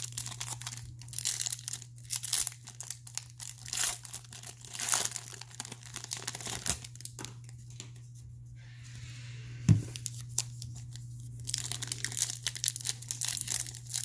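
Foil wrapper of a Donruss football trading card pack being torn open and crinkled in the hands, with a lull of a couple of seconds a little past halfway. A single knock comes just after the lull, over a steady low hum.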